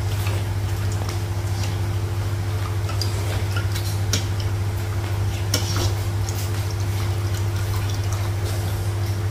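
A steady low electrical or machine hum, with scattered light clicks of spoons against bowls and dishes.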